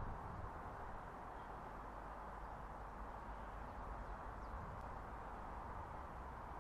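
Faint, steady outdoor background noise, a low hum and hiss with no distinct event, and a faint bird chirp about four and a half seconds in.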